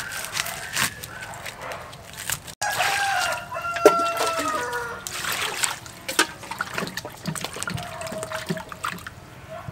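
A rooster crows once near the middle, one long crow of about two seconds, with a shorter call later on. Around it come a few knife knocks on a wooden cutting board and water splashing as vegetables are washed by hand in a steel bowl.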